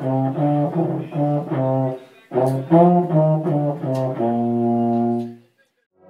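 Euphonium played by a beginner of about three months: a simple tune in short notes, two phrases with a brief gap between them, ending on one long held note that stops about five and a half seconds in.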